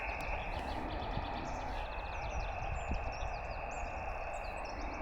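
Steady hiss of the LAB599 TX-500 transceiver's SSB receiver, an empty band with no station on it, muffled with no treble. Small birds chirp and whistle over it, with short rising and falling notes that grow busier in the second half.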